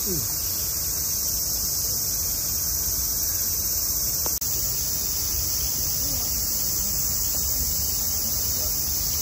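Steady, high-pitched buzzing of a summer cicada chorus, cut off for an instant about four seconds in, with faint distant voices.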